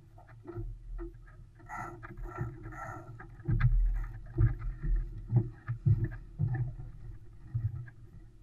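Water slapping and knocking against the hull of an Olson 25 sailboat under way, heard as irregular low thumps with a few sharp clicks and a short rustle about two seconds in.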